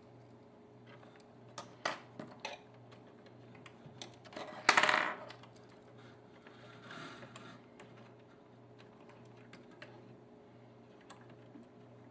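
Small metal tweezers clicking and tapping against the turntable's metal motor pulley and chassis while a rubber O-ring belt is worked into place. There is a louder burst of scraping handling noise about halfway through.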